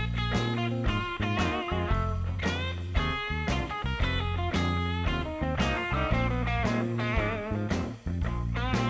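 Background music led by guitar, with a steady beat and bass line.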